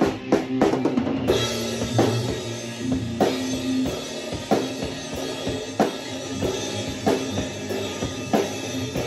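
Acoustic drum kit played in a steady beat, about three hits every two seconds on kick and snare, with cymbals ringing in from about a second in.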